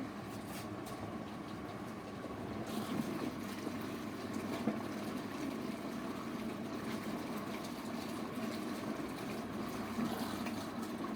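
Washing machine agitating its rinse water during the rinse cycle, a steady churning and sloshing that gets a little brighter about two and a half seconds in.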